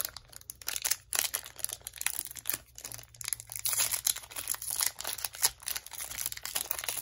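Foil wrapper of a trading-card booster pack being torn open and crinkled by hand: a dense, irregular run of sharp crinkles and crackles.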